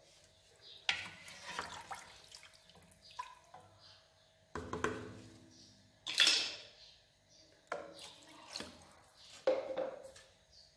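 Wooden spatula working meat broth in a stainless steel pressure cooker: the liquid sloshes and splashes in a series of separate strokes, with scrapes and knocks of the spatula against the pot.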